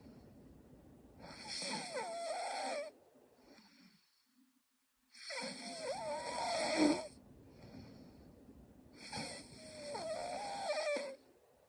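A sleeping young woman snoring: three snores about four seconds apart, each with a wavering, fluttering pitch, with soft breaths between them.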